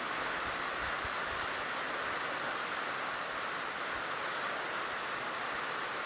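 Steady, even hiss of outdoor background noise, strongest in the middle pitches, with no bird calls.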